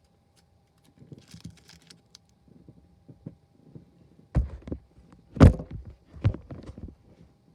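Rustling and handling, then three heavy thuds and clunks, the loudest about five and a half seconds in.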